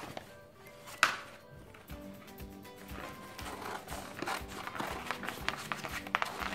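Scissors snipping through a plastic-backed rub-on transfer sheet, with a run of small clicks and rustles as the sheet is handled, and one sharp click about a second in. Background music plays underneath.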